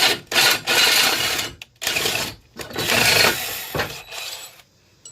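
Electric drill boring into steel in three bursts of a second or so each, stopping and starting, then tailing off near the end.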